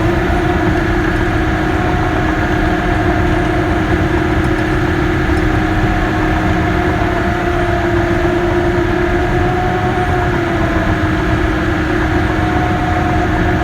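Caterpillar D6K bulldozer's diesel engine running at a steady high speed under load, with a steady whine over a low rumble.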